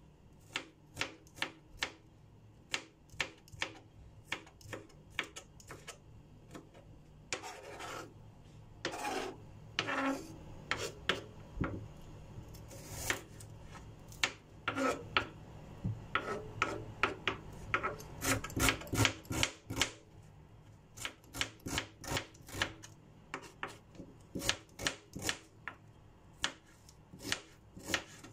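Kitchen knife chopping garlic cloves and then cutting a red onion on a plastic cutting board: a run of sharp knocks of the blade on the board, about one or two a second, with scraping and rubbing a third of the way in and a quick burst of cuts past the middle.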